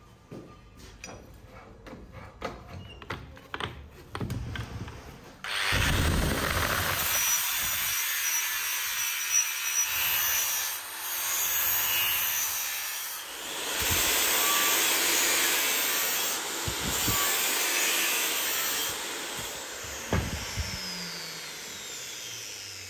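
A few light knocks and clicks of handling at the vise, then an angle grinder with an abrasive disc starts abruptly and grinds a steel knife blade forged from an old bearing, running steadily with brief dips as the disc comes off the work. Near the end it eases off and winds down.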